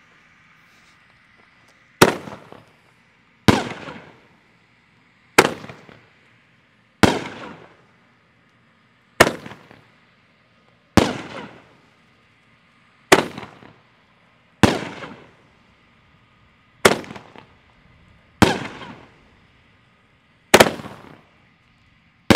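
'After Midnight' consumer firework cake firing shot after shot. About a dozen sharp bangs come one every one and a half to two seconds, starting about two seconds in, each trailing off in a short rumble as a shell bursts overhead.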